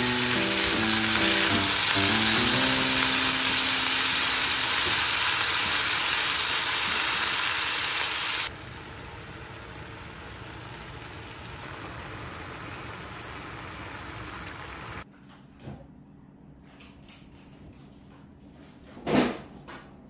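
Food frying in a pan, sizzling loudly for about eight seconds and then more quietly until about fifteen seconds in. Piano music fades out in the first few seconds. Near the end there are a few soft knocks and one louder knock.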